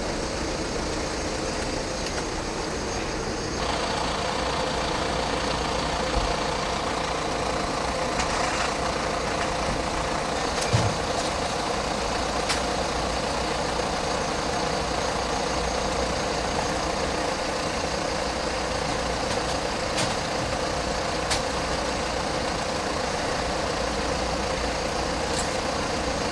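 Steady drone of idling emergency-vehicle engines, filling out a few seconds in, with a few scattered clicks and knocks.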